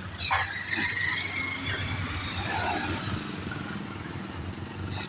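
Street traffic rumble with a high squeal starting about half a second in and lasting about a second.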